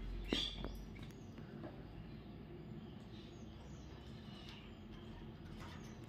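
A parakeet gives one short, sharp call about a third of a second in, falling in pitch. A few faint chirps follow.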